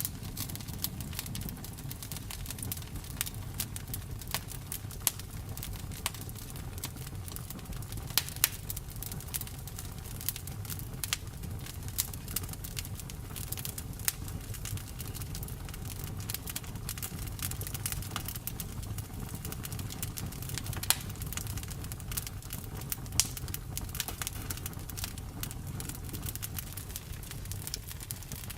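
Campfire burning, wood crackling with many irregular sharp pops and snaps over a steady low rumble of the flames.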